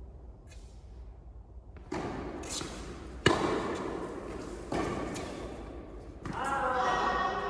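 A tennis ball struck by a racket: one sharp crack about three seconds in and a softer hit or bounce over a second later, each echoing in the indoor hall. Voices come in near the end.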